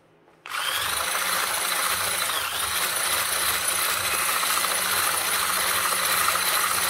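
Electric hand blender with a whisk attachment switched on about half a second in and running steadily, whisking butter with caster sugar in a glass bowl; its whine dips briefly in pitch a couple of seconds in.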